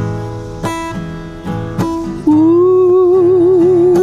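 Acoustic guitar strummed in slow chords; about halfway through, a woman's voice comes in singing a long held "ooh" with a wavering vibrato over the guitar.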